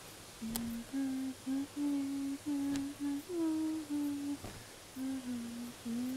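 A woman humming a slow tune, held notes stepping between a few pitches with short breaks. Two faint clicks, about half a second and nearly three seconds in.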